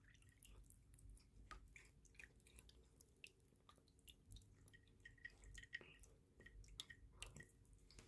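A cat chewing and eating roast chicken: faint, irregular small clicks and mouth sounds.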